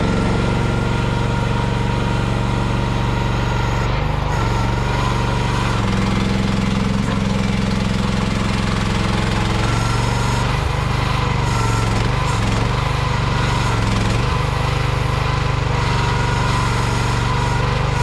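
Small engine of an AGT Industrial Q12 mini excavator running steadily, its pitch shifting a little at times, around four seconds in and again between about ten and fourteen seconds.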